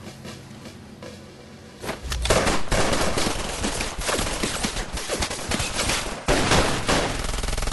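After about two seconds of quiet, a sustained volley of gunfire from several handguns fired at once: many rapid shots overlapping, with a brief break a little past six seconds before the shooting goes on.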